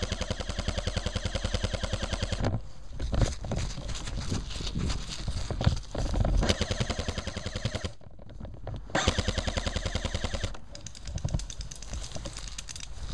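Airsoft electric rifle firing long, rapid full-auto bursts, three of them, with scattered clicks and rustling of brush between.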